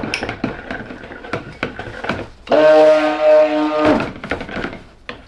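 Stick blender run in one short burst of about a second and a half, a steady buzzing hum that starts and stops abruptly, mixing colorant into cold process soap batter. Light clinks and taps of containers and utensils come before it.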